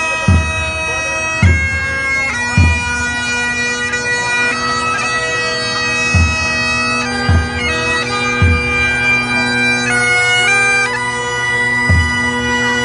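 Great Highland bagpipe playing a slow tune: steady drones under a chanter melody that moves between held notes. Deep thumps come in threes about a second apart.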